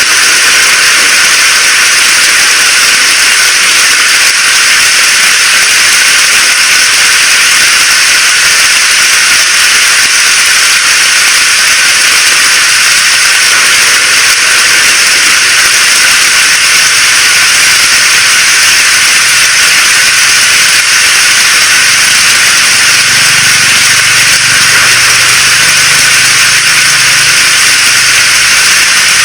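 Steady heavy rainfall: a loud, even hiss that runs on without a break.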